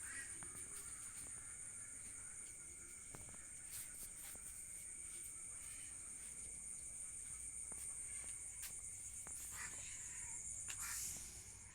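Insects chirring steadily in a high, continuous drone, with a few faint clicks and short bird calls near the end.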